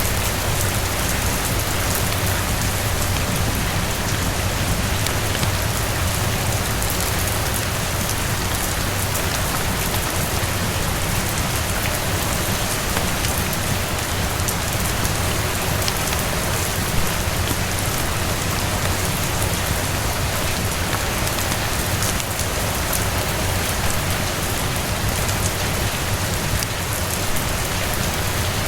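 Steady rain falling on a terrace, with scattered sharp crackles of a wood fire and one louder pop about 16 seconds in.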